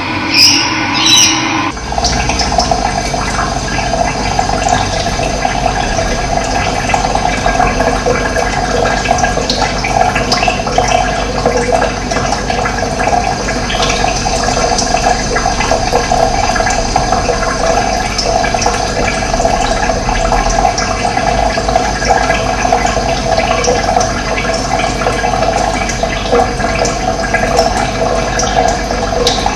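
Steady rushing of running water, an even, dense flow. A different sound with two short high-pitched blips cuts off about two seconds in, just before the water begins.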